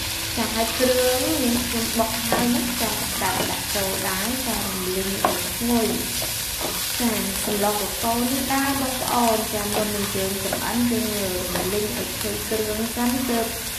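Lemongrass paste (kroeung) and meat sizzling in hot oil in an aluminium wok, stirred with a metal ladle that scrapes and knocks against the pan over and over, with wavering squeaky scraping tones.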